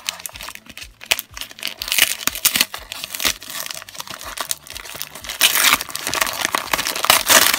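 Christmas wrapping paper being torn open and crinkled by hand, a run of crackling and ripping that grows busier after the first couple of seconds.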